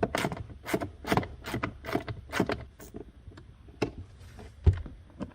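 Irregular clicks and knocks of a ratchet and 5.5 mm socket being handled and turned on the mounting bolts of a blower motor resistor, with a dull thump near the end.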